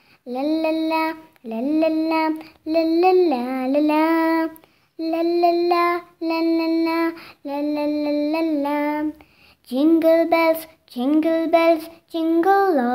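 A child singing a Christmas song alone, with no instruments, in short phrases separated by brief pauses.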